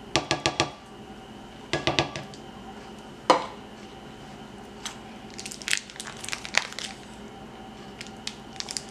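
A spatula tapped quickly several times against a glass blender jar to knock off cream, a few more taps, and one sharp knock. Then the foil wrapper of a block of cheese crinkling in bursts as it is peeled open.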